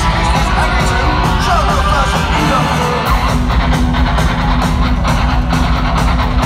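A heavy rock band playing live at full volume, heard from the audience: distorted electric guitars, bass and drums. The low end drops out for a moment about three seconds in, then the full band comes back.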